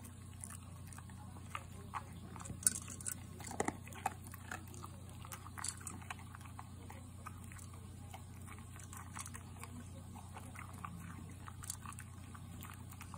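American Cocker Spaniel eating from a ceramic bowl: irregular crunches and clicks of food and muzzle against the bowl, busiest in the first half. A low steady hum lies underneath.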